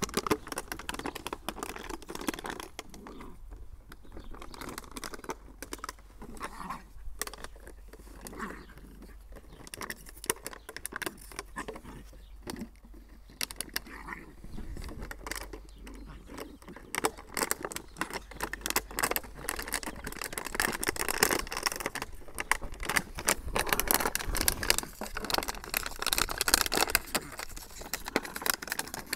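Empty plastic water bottle crinkling and crackling in quick, irregular clicks as a litter of Jack Russell terrier puppies bite and tug at it, getting busier and louder in the second half.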